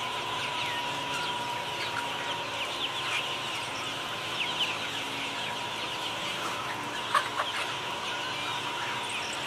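A flock of chickens clucking and peeping, with many short high calls overlapping continuously and a steady tone in the background; one call stands out louder about seven seconds in.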